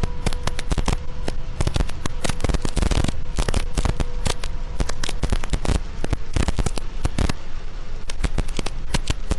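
Heavy rain drumming on a vehicle's windscreen and roof, heard from inside the cab as a loud, dense crackle of drops, with a faint steady tone underneath.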